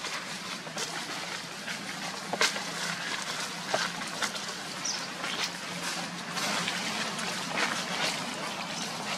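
Dry fallen leaves crackling and rustling as macaques move about on the leaf litter, with sharp crunches every second or so.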